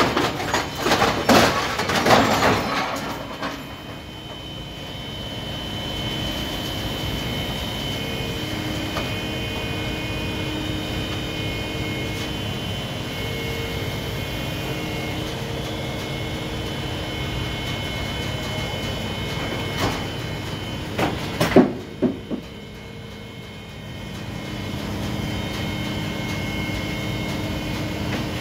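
Grapple-equipped scrap-handling crane running, its engine and hydraulics making a steady drone with a few held whining tones as it lifts a steel lattice conveyor frame. Steel clanks and knocks in the first few seconds, and sharp knocks again about twenty seconds in.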